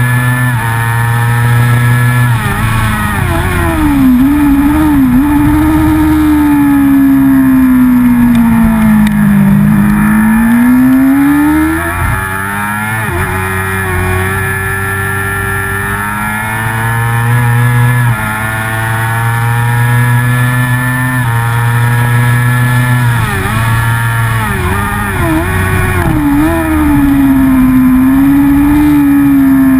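Racing motorcycle engine at high revs heard from the bike itself. Its note falls and climbs with throttle and gear changes, with quick stepped dips on downshifts into corners about three seconds in and again a little past twenty seconds. It eases off for a stretch in the middle before pulling hard again.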